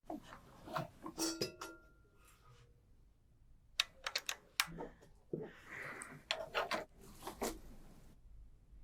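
Scattered sharp clicks, clinks and light knocks, irregular and a second or so apart, like small hard objects being handled.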